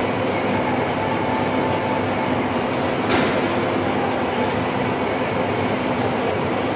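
Universal gear hobbing machine running while cutting a spur gear: a steady mechanical hum with a faint tick about once a second, and one sharp click about three seconds in.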